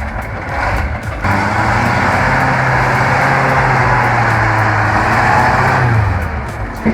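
Heavy truck engine running hard under load. It picks up about a second in, holds steady, then eases off near the end.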